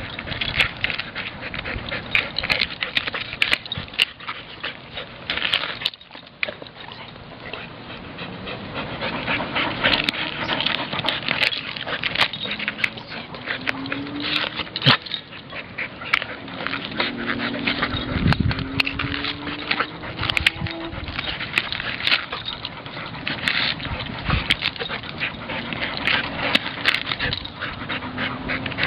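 An Entlebucher mountain dog tearing and chewing at a coconut's fibrous husk: dense, continuous crackling and ripping with gnawing, broken by a few short rising whines around the middle and again near the end.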